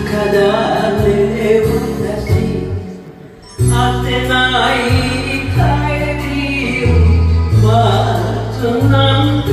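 Enka song on a karaoke backing track with a woman singing into a handheld microphone. The music cuts out briefly about three seconds in, then resumes.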